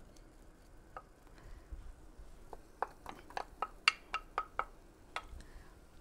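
A spoon tapping and scraping against a bowl and skillet as cubed red pepper is emptied into the pan: about a dozen light clicks over a couple of seconds, starting about halfway through.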